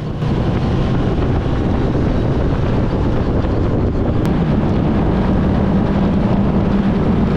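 Motorcycle engine running steadily at cruising speed under heavy wind noise on the rider's camera microphone. The engine tone climbs a little about four seconds in.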